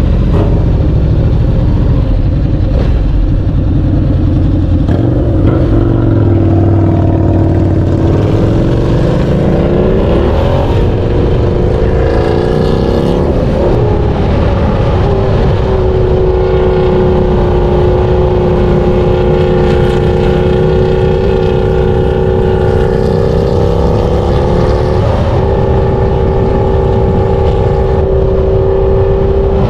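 Harley-Davidson V-Rod Muscle's liquid-cooled 60-degree V-twin engine running loud. Its pitch dips about six seconds in, climbs as it revs up between about eight and eleven seconds, wavers briefly, then holds at an even pitch from about fifteen seconds on.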